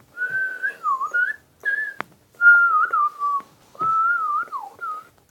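A person whistling short, wavering bird-like phrases that voice a toy bird's call. Two sharp clicks fall between the phrases.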